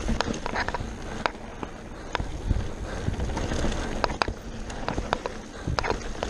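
Mountain bike descending a dirt singletrack: the tyres roll over the loose trail with a low rumble, and the bike rattles with irregular sharp clicks and knocks as it takes the bumps.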